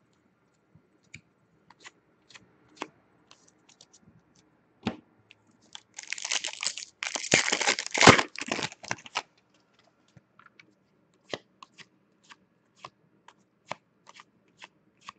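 Trading-card handling: a few scattered light clicks, then a card pack's wrapper torn open and crinkled for about three seconds, starting about six seconds in. A run of light, evenly spaced clicks follows, about two a second, as the pack's cards are flipped through one by one.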